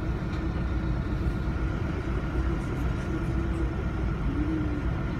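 Canal tour boat's engine running steadily, a deep, even sound with no breaks, heard from aboard the boat.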